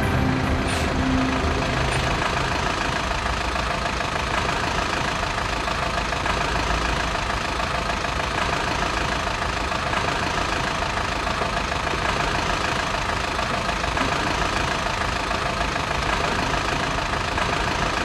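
Otokar midibus's diesel engine running steadily as the bus pulls up to the stop and idles.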